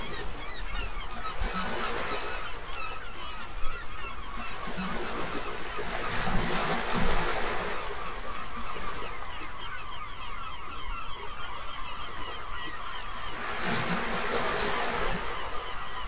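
A flock of gulls calling over and over, many birds at once, over the wash of ocean surf. The surf swells about six seconds in and again near the end.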